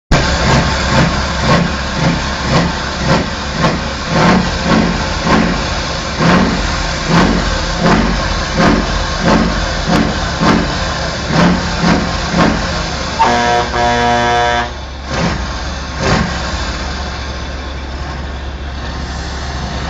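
Mercedes-Benz Actros truck's diesel engine revved in quick throttle blips through its exhaust, about two a second. About two-thirds of the way through a steady held tone sounds for about a second and a half, then the engine settles to a steadier, lower run.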